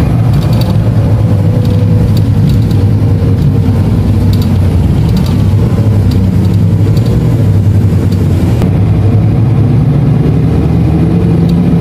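Steady low engine drone and road rumble of a moving bus, heard from inside the cabin, with occasional faint ticks.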